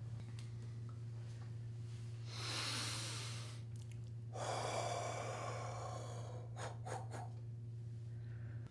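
A man takes two long, heavy breaths, the first about two seconds in and the second, longer one about four and a half seconds in, over a steady low hum.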